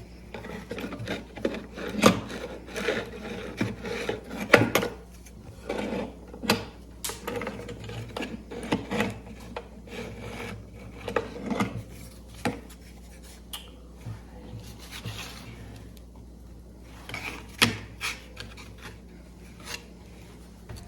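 Handling noise from a homemade puzzle box: parts rubbing and scraping against each other, broken by many sharp clicks and knocks. The clicks come thick and fast for the first half and thin out later, with a few more near the end.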